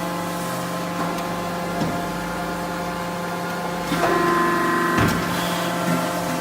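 CNC press brake running with a steady machine hum of several fixed tones. About four seconds in, the hum rises and grows louder for roughly a second as the machine works, then ends in a single knock.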